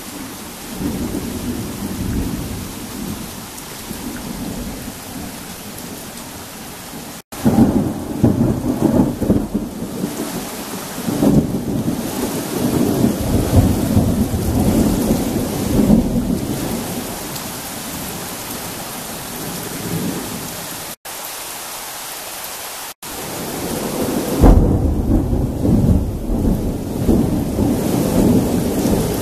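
Heavy rain falling steadily in a thunderstorm, with rolling thunder: a low rumble near the start, a loud peal about seven seconds in that rumbles on for some ten seconds, and another loud peal near the end. The sound cuts out for an instant three times.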